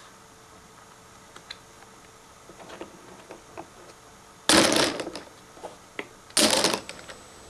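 Poker chips clicking together as they are picked up and stacked, then two louder, brief clatters of chips about two seconds apart.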